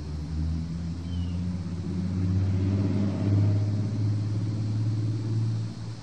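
Hummingbird wings humming close to the microphone: a low buzzing hum that builds over a few seconds and stops fairly abruptly near the end. Cicadas drone high and steady underneath.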